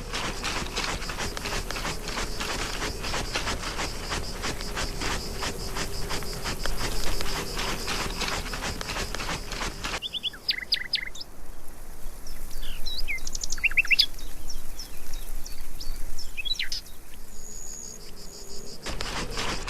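Sound-effect track: a dense run of rapid rasping scratch strokes over a steady buzz that stops abruptly about ten seconds in. It is followed by scattered short, whistled bird chirps.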